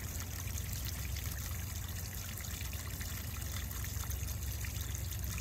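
Water from a bubbler fountain, a standpipe in a glazed ceramic pot, spilling over and trickling steadily down onto rocks and pebbles, with a steady low rumble underneath.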